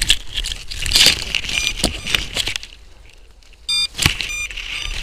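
Leafy tree branches rustling and shaking as they are pulled and pushed through to reach a drone caught in them, with a couple of sharp twig cracks. A short electronic beep sounds about four seconds in.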